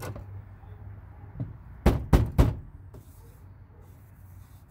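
A knock, then three quick, loud knocks about a quarter second apart on the grey plastic inner door trim panel of a 2002 Toyota Tacoma as it is worked loose by hand.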